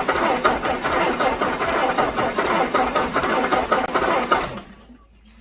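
Ford Model A four-cylinder engine being cranked over by the starter with a fast, even rhythm, stopping about four and a half seconds in. It is a spin to check for spark from the newly installed Scintilla magneto, which is firing where it should.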